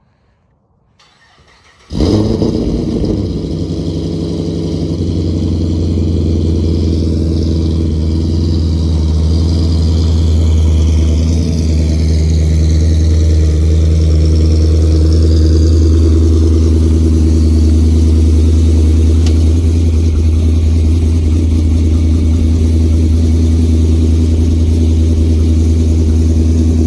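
Pontiac G8 with a new exhaust, its engine cranking and catching about two seconds in, then idling steadily with a loud, even low rumble from the exhaust.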